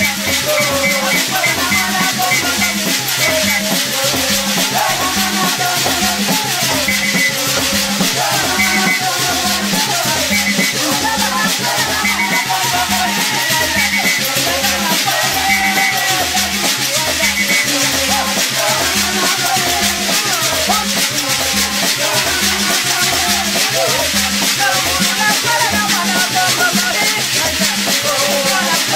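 Zigua ngoma spirit-dance music: a group of women shaking hand-held metal can rattles in a fast steady shuffle while singing together, over low drum beats about twice a second.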